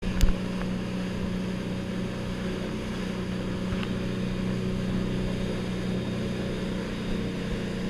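Outboard motors of a dive boat running steadily at speed: a constant low drone with rushing wind and water noise. A sharp knock just after the start.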